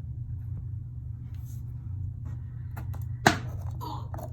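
Plastic containers being handled: light clicks and one sharp knock about three seconds in, over a steady low hum.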